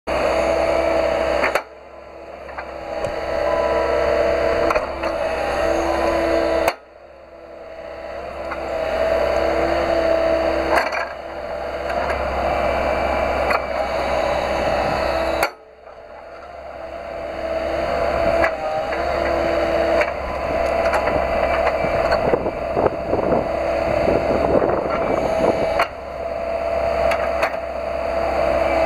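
Komatsu PC138 hydraulic excavator running as it works a rotating grapple attachment, turning and opening and closing it. Its hydraulic whine comes and goes over the engine. The level drops sharply four times and swells back over a few seconds each time.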